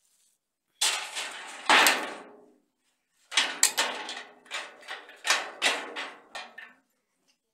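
Perforated metal steamer tray clattering on a concrete floor: two loud clangs about a second in, then a quick run of sharp knocks and rattles.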